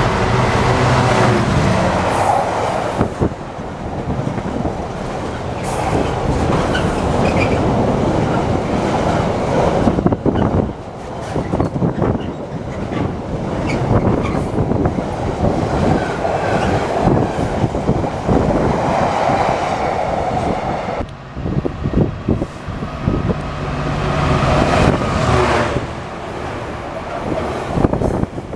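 A GB Railfreight Class 66 diesel locomotive passes close by at the head of a container freight train, its engine running with a steady low note for the first couple of seconds. Then the container wagons roll past with a continuous rumble and a rhythmic clatter of wheels over the rail joints.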